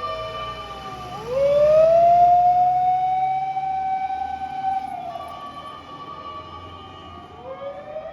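Fire engine sirens on an emergency run. One siren wails up about a second in, holds high, slides down around the middle and starts climbing again near the end, with a second, steadier siren tone and a truck engine rumbling underneath.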